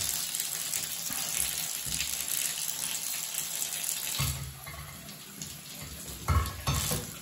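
Water running into a bathtub, a steady rush that drops in level about four seconds in. Near the end come a few short knocks as the brass trumpet is handled over the tub.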